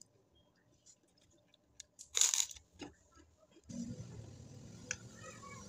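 Close-miked mouth sounds of eating fried noodles and egg: a short, loud crunchy burst about two seconds in, then steady chewing from about the middle on.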